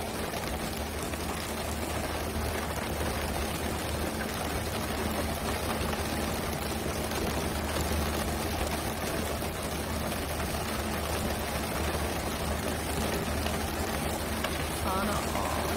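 Steady rushing and splashing of water along the hull of a pole-and-line tuna fishing boat at sea, with the boat's engine droning low underneath.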